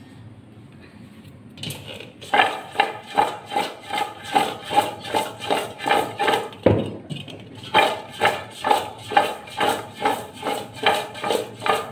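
Sliced raw mango being tossed in a stainless steel pot: the pot is shaken in a steady rhythm of about two to three strokes a second, the slices thumping against its sides and the steel ringing. The shaking starts about two seconds in and pauses briefly around the middle.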